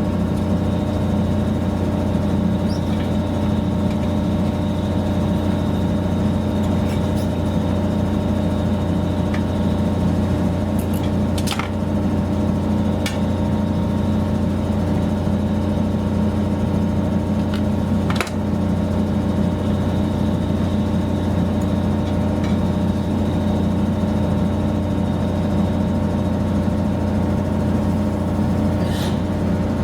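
Steady mechanical hum of a running motor or engine, with a few sharp clicks and knocks now and then.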